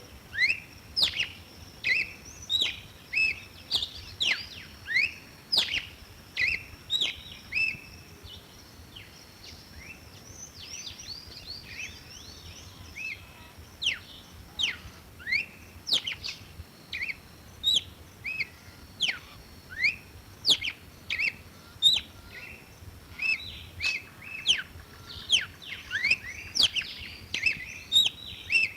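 Red-cowled cardinal singing: quick runs of short, sharp falling notes, repeated over and over, going softer and sparser for a few seconds about a third of the way in.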